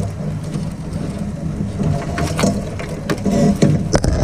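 Wire rigging (shrouds and stays) clinking and rattling in short sharp knocks as it is handled and untangled, over a steady low rumble.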